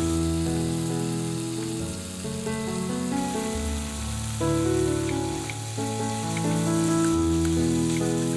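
Bracken fern stems sizzling as they are stir-fried in a wok, under louder background music of slow, sustained chords that change about once a second.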